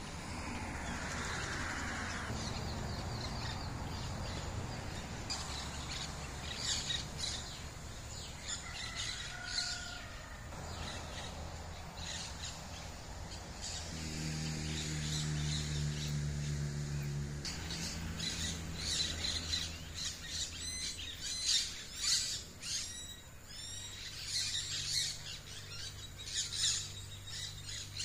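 Birds chirping and calling in the trees, many short high chirps, some sweeping down in pitch, growing busier in the second half. A low steady hum runs underneath and grows louder for a few seconds around the middle.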